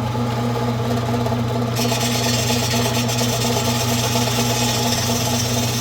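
Belt-driven metal-cutting saw running with a steady motor hum. About two seconds in, a loud high hissing rasp joins the hum, as the blade works the exhaust steel. The owner puts his recurring trouble with it down to a loose drive belt.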